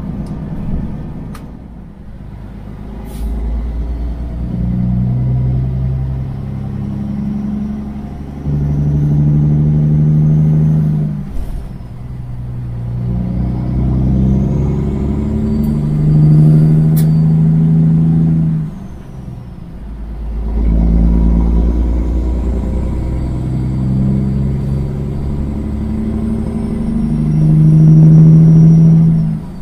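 Straight-piped Kenworth semi truck's diesel engine accelerating up through the gears, the revs climbing and then dropping back at each shift, about two, eleven and nineteen seconds in. A faint high whine rises and falls with the revs.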